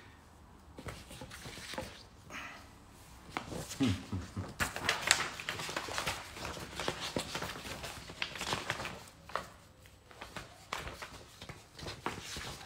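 Handling noise from smartphones and their packaging: a run of small clicks, taps and light knocks as the phones are picked up and moved about, busiest from about three seconds in.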